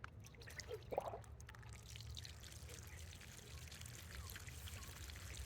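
Tiered garden fountain running: water trickling and pouring down through the tiers, faint, filling in about two seconds in. A short pitched sound stands out about a second in.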